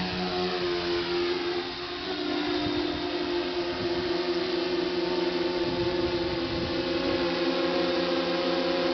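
Multirotor drone's motors and propellers humming steadily as it lifts off and climbs, a whirring sound with several held tones.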